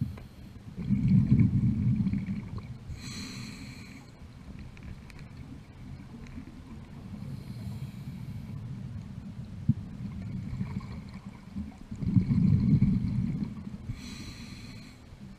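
Scuba regulator breathing underwater: twice a loud, low bubbling exhalation, each followed about a second later by a short hissing inhalation through the regulator.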